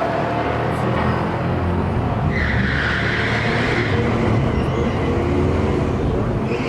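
Muscle-car V8 engines running hard at the drag strip, their pitch climbing slightly as they rev, with a hissing rush of tyre noise from about two to four seconds in.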